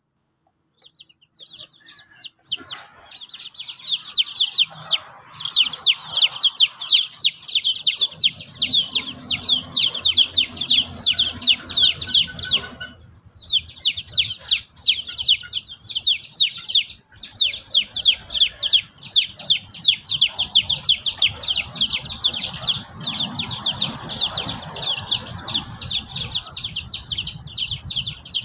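Young chickens peeping, many short high downward-slurred peeps a second from several birds at once. The peeping starts about two seconds in and breaks off briefly about halfway through.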